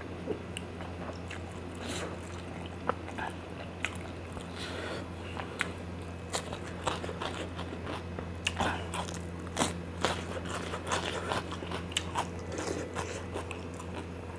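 A person chewing a full mouthful of spicy noodles close to the microphone: wet smacks and crisp clicks, coming thicker in the second half, over a steady low hum.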